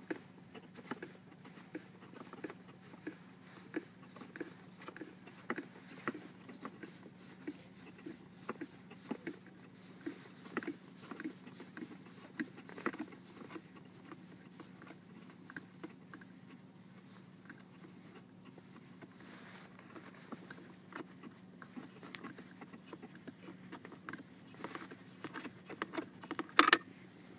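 Fingers handling the GoPro Hero 3's clear plastic housing and its packaging mount while unscrewing the camera free, giving scattered small plastic clicks and taps, with a louder clatter near the end. A steady low hum runs underneath.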